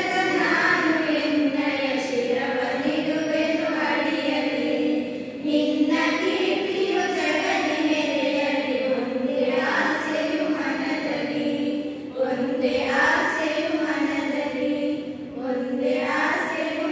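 A group of schoolgirls singing a song together in unison, in long held phrases with short breaks about five and a half and twelve and a half seconds in.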